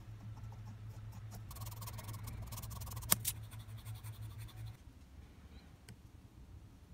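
Scratchy scraping and rubbing on wood as crumbly debris is cleaned off the tenon of a wooden stool leg, with a sharp click about three seconds in. A low steady hum runs underneath and stops about two thirds of the way through.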